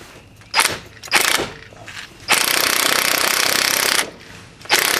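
Impact wrench hammering on a lug nut to pull a new wheel stud through the front hub with a stud installation tool: two short blips, then a steady run of nearly two seconds, then another short blip near the end.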